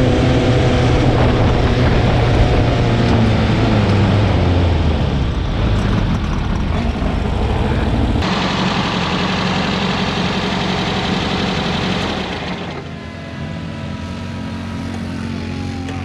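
Dune buggy engines running. The sound changes abruptly about eight seconds in and again about thirteen seconds in, after which a slowly falling whine appears.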